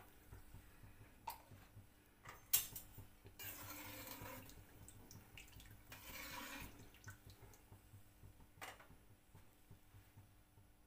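Cooking oil being poured into a pot of spiced water: faint splashing and dripping in two short spells, with a few light clinks, the sharpest about two and a half seconds in.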